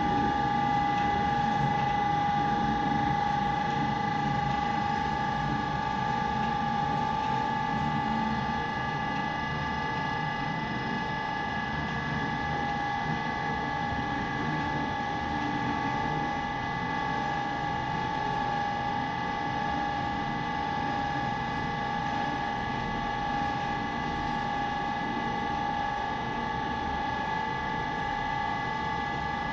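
A steady machine hum: several unchanging high whining tones over a low rumble, holding at one level throughout.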